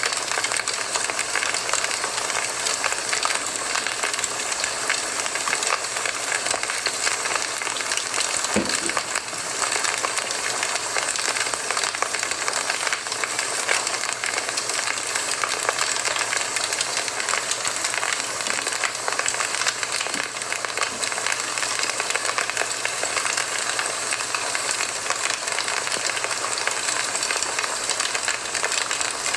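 Campfire burning, the wood crackling steadily with small pops over a constant hiss, and one deeper pop about nine seconds in.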